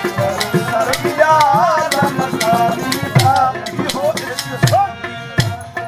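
Live Sufi kalam music: harmonium and tabla with melismatic sung phrases and a rattling hand percussion. The playing thins out in the second half and dies down near the end.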